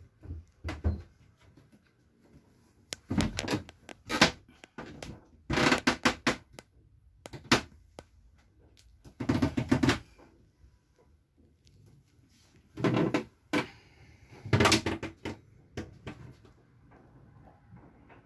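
Irregular knocks, clunks and rattles of cabin doors and fittings being handled inside a sailing yacht's small wood-panelled cabin, in a string of separate bursts with quiet between.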